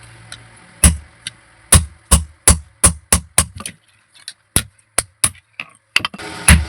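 A blacksmith's hand hammer striking metal in a rapid, uneven run of about a dozen sharp blows, with a short pause about four seconds in.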